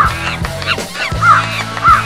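Goose-like honking calls repeating at an even pace, about one every 0.6 s and four in all, each rising and falling in pitch, over background music with a steady low bass.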